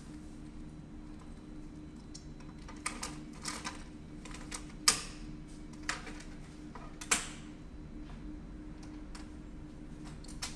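Scattered sharp plastic clicks and clacks at the front of an HP colour laser printer. The loudest snap comes about seven seconds in, as the front door swings shut and latches. A steady low hum runs underneath.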